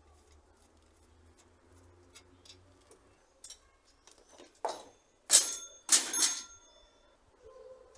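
Kama folding bicycle being unfolded: small clicks and taps, then a quick run of about four loud metal clanks and rattles with a brief ring as the folded steel frame swings open and its parts knock together.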